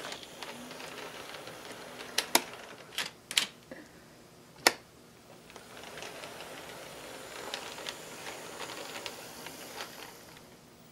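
Several sharp clicks in the first few seconds, then the faint, steady whir of a Kato C44-9W model locomotive's motor and wheels running along the track. The whir builds over the second half and fades just before the end.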